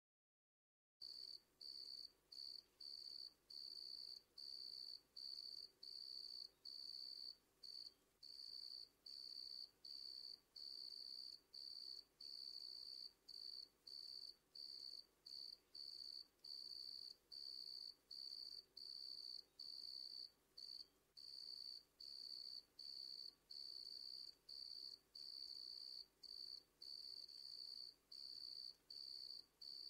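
Cricket chirping: a high-pitched trill repeated in short, even bursts nearly twice a second, starting about a second in and going on steadily.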